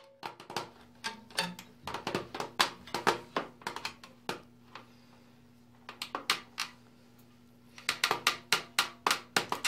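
Thin black steel stovepipe tabs being bent over by hand one after another, making a run of sharp, irregular metallic clicks and crinkles. The clicks come in clusters, with a lull of a few seconds in the middle and a dense run near the end.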